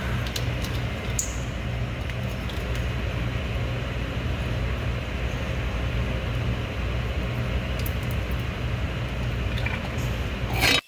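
Steady low machine rumble, with a few light clicks and knocks as the metal pump plate and fittings are handled; the rumble cuts off suddenly near the end.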